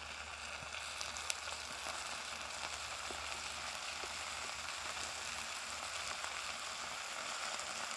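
Diced food frying in a titanium pan over a paraffin-wax buddy burner: a steady sizzle with a faint pop about a second in.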